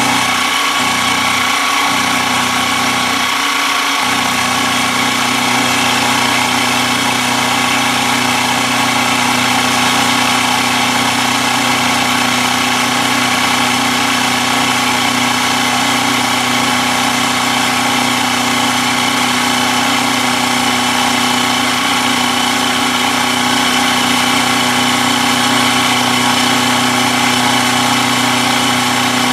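Milling machine running steadily, its end mill cutting along the edge of a steel bar held in the vise: a constant motor and spindle hum with the even hiss of the cut.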